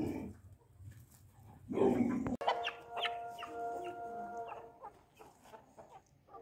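A dog barks once about two seconds in. Then Aseel chickens and roosters cluck in drawn-out calls for a few seconds, fading near the end.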